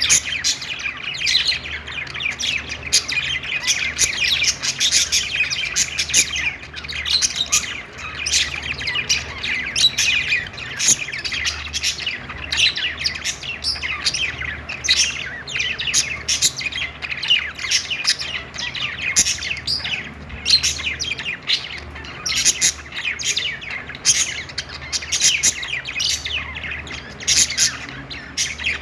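A flock of budgerigars chirping and singing together, many short calls overlapping without a break.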